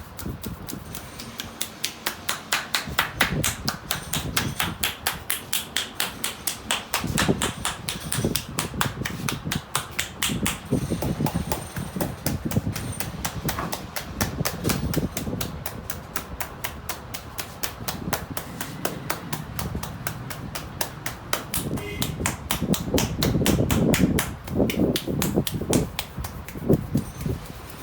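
A barber's hands rapidly tapping and slapping on a customer's head in a head massage, a steady drumming of about five strokes a second. The strokes turn heavier and duller near the end.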